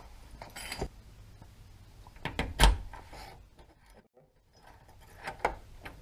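Newly installed door deadbolt being tried by hand: a handful of separate metallic clicks and clunks of the bolt and door hardware, the loudest about two and a half seconds in.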